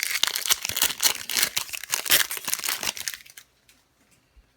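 A Pokémon TCG Plasma Freeze booster pack's foil wrapper crinkles loudly as it is torn open, then stops about three seconds in.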